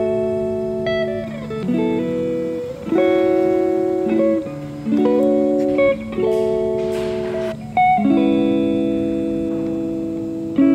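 Background music: guitar-led track playing chords, each held for a second or two before the next.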